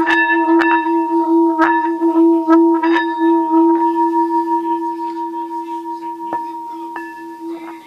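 Water-filled metal singing bowl ringing with a steady, wavering hum and ringing overtones. The hum slowly fades through the second half, and a few sharp clicks sound over it.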